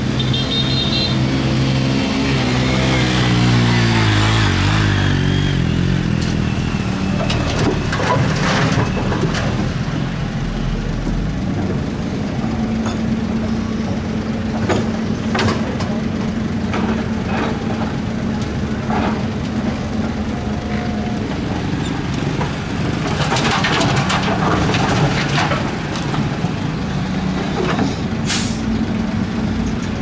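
Zoomlion hydraulic excavator's diesel engine working under load, its note dropping in pitch in the first few seconds and then holding steady. Scattered knocks and clanks from the bucket and dirt run throughout, heaviest twice.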